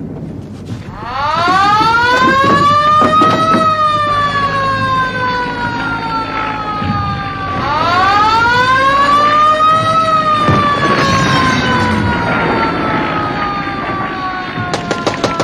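A wailing, siren-like tone that sweeps up in pitch and then slowly down, twice. Near the end a fast, even run of sharp clacks begins.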